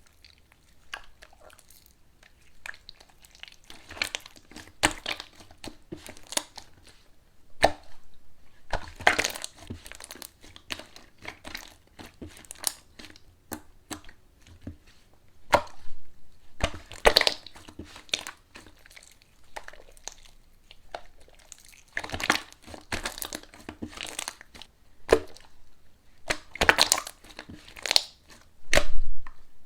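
Slime being handled by hand, giving irregular crackling, crunching and popping in clusters with short quiet gaps between.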